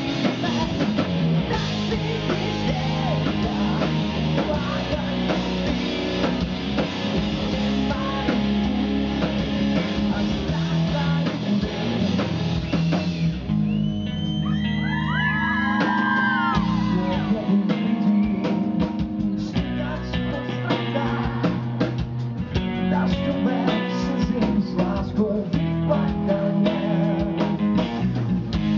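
Live rock band playing: electric guitar, bass guitar and drum kit, with a male lead vocal. About halfway through, the drums and cymbals drop out for a few seconds while a single melody line bends up and down, then the full band comes back in.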